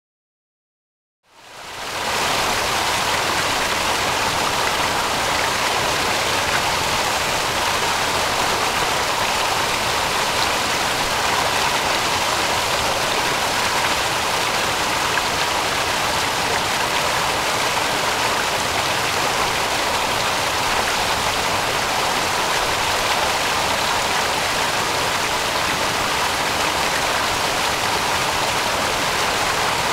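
Steady rush of flowing stream water, fading in over the first two seconds.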